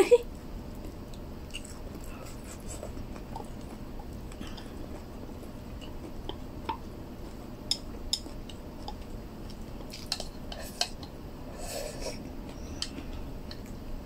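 Eating at a table: chopsticks clicking lightly against a food container every second or two, with soft chewing, over a steady low room hum.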